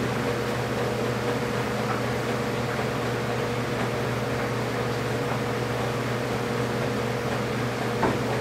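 A steady mechanical hum with a hiss over it, unchanging throughout, and one faint click near the end.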